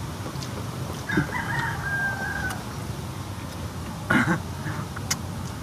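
A rooster crowing once: a drawn-out call that ends on a held note about two and a half seconds in. A short, loud noise follows about four seconds in.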